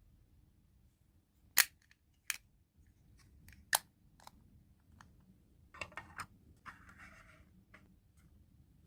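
Sharp clicks and snaps of small plastic pieces being handled and set down: three loud ones in the first half, then a quick run of lighter clicks and a brief rustle.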